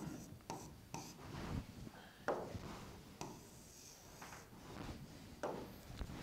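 Pen writing on an interactive whiteboard: a run of faint, irregular short scratches and taps as a word is written out stroke by stroke.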